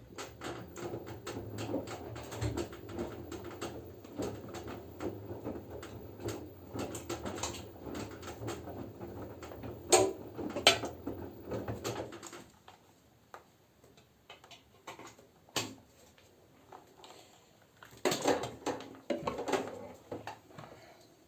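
LG F10B9LD front-loading washing machine in its wash phase: the drum turns for about twelve seconds with wet laundry tumbling and pattering over a low motor hum, with two sharper knocks about ten seconds in. It pauses, then starts turning again near the end.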